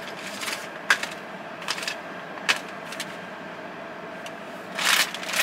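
Shopping bag and product packaging being rummaged through by hand: a few sharp clicks and crinkles spaced about a second apart, then a louder rustle near the end.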